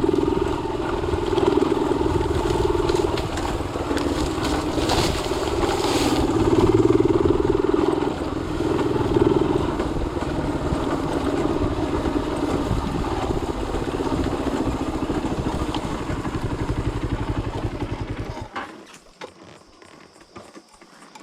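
Motorcycle engine running with a steady, fast pulsing, its level rising and falling a little; it drops away about eighteen seconds in.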